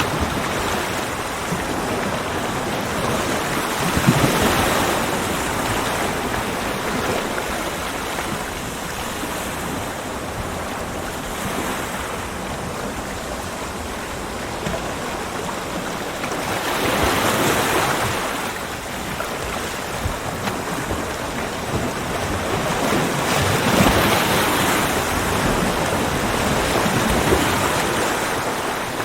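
Ocean waves breaking on a beach: a continuous wash of surf that swells louder as waves come in, most strongly about four seconds in, around seventeen seconds and around twenty-four seconds, then eases back.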